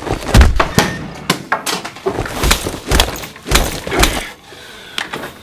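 A rapid series of loud bangs and crashes, about ten blows in four seconds, as things are struck and knocked about in a fit of anger, stopping about four seconds in.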